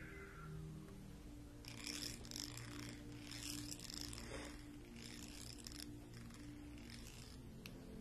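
Soft scratchy swishes of mermaid-tail brushes stroked over long hair and a bare back, four strokes about a second apart, over quiet ambient background music.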